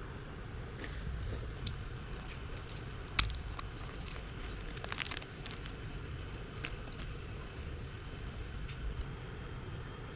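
Light scattered clicks and taps of small parts and tools being handled at a workbench, two sharp clicks standing out early, over a steady low background rumble.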